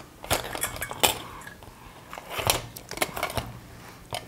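Metal clinks and knocks as D-type cells are slid out of a metal torch body and set down on a table, several separate clicks spread through the moment.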